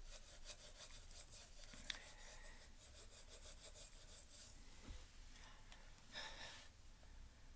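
Faint rubbing and rustling with many small clicks, as of a hair dryer being handled while switched off. There is one sharper click about two seconds in and a short hiss a little after six seconds.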